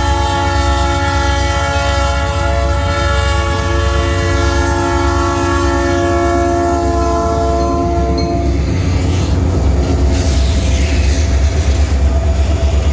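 EMD SD40-2 diesel-electric freight locomotives passing with a long horn blast over a heavy low engine rumble. The horn stops about eight seconds in, leaving the engine rumble and the clickety-clack of the train's wheels over the rail joints.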